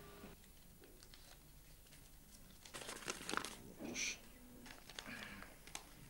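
Faint rustling and handling of paper, with a few short clicks, mostly about three seconds in and again around four to five seconds.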